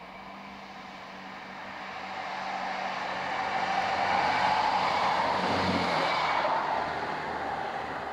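Class 158 diesel multiple unit approaching and passing close by: a steady diesel engine hum with a rising rush of wheels on rail, loudest about four to six seconds in, then fading as the train goes away.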